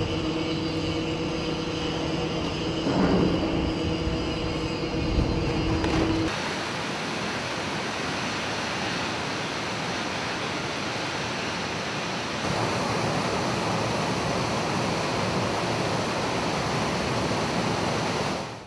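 Water rushing and churning into a flooding dry dock around a ship's stern, rudder and propeller: a loud, steady rushing noise. For the first six seconds a steady machine hum with a few held tones sits under it, then stops abruptly.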